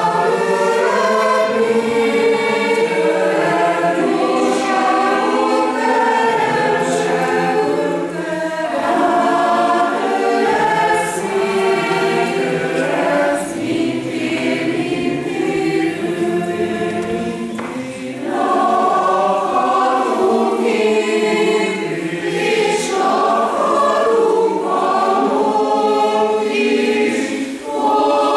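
Mixed choir of women's and men's voices singing, with a brief break between phrases about eighteen seconds in.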